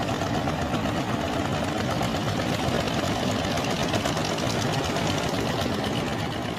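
Fishing boat engine running steadily with a rapid, even chugging.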